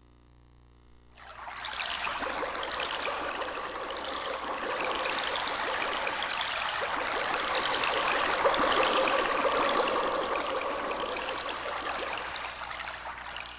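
TJ Media WOW-7800 karaoke machine playing one of its built-in sound effects: a dense, steady hiss like running water, starting suddenly about a second in and cutting off at the end.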